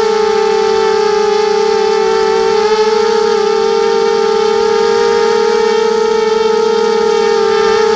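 Emax Nighthawk quadcopter's brushless motors and propellers whining at a steady, high pitch that wavers slightly, heard from its onboard Mobius camera during slow flight.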